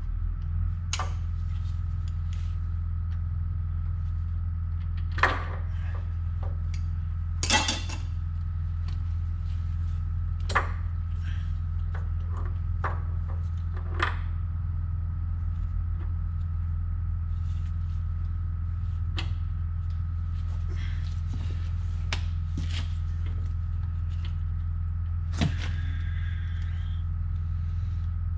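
A steady low hum with a faint thin whine above it, under scattered sharp clicks and knocks of metal wheel-hub parts being handled and fitted.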